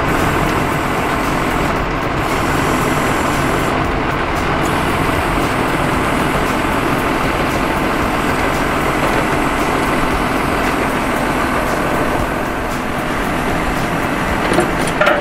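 Tractor running with its Hardee hydraulic boom mower's rotary blades spinning: a steady, loud machine noise. Two brief knocks near the end.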